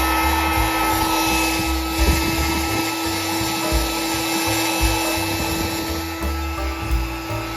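Background music with a repeating bass beat over the steady whir of a small power tool.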